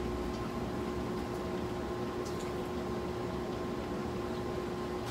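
A steady background hum with a few fixed tones, and faint small crackles and rustles from mandarin oranges being peeled by hand.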